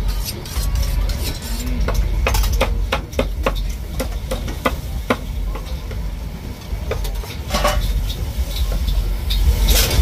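Metal ladle and spoon clinking and scraping against a stainless-steel mixing bowl as dressing is spooned in, a string of sharp clinks thickest a couple of seconds in, over a steady low rumble.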